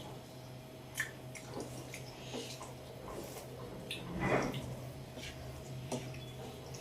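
People eating a rice-and-curry meal: soft wet chewing and mixing noises with scattered small clicks, and one louder wet squelch about four seconds in, over a steady low hum.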